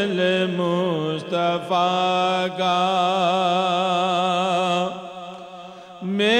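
A man chanting an Urdu naat, drawing one long melismatic note that wavers and then holds steady with a slight vibrato. The note fades away about five seconds in, and after a short breath the next phrase begins.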